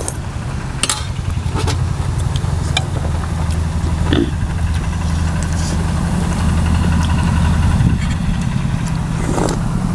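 An engine idling steadily nearby, a low even hum, with a few sharp clicks of spoons on the dishes.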